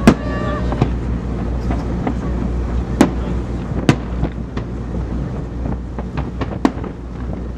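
Aerial firework shells bursting: sharp bangs at the very start, about three seconds in, about four seconds in and near the end, with a run of smaller crackling pops in between, over a steady low rumble.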